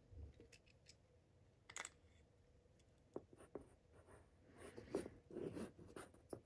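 Faint clicks and scratchy rustling of a HomePod Mini's small plastic and metal parts being handled: a screwdriver working on the speaker driver's screws, then the driver and its plastic housing being separated and turned over. A brief scrape comes about two seconds in, and a run of clicks and rustles in the second half is loudest about five seconds in.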